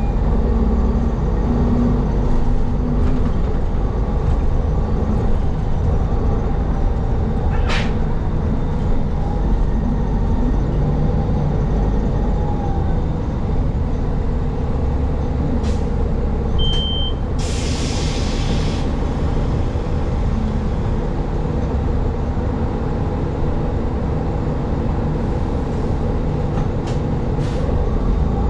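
City bus running with a steady low rumble, a few sharp clicks over it. About two-thirds of the way through a short high beep sounds, followed by a hiss of air brakes lasting over a second.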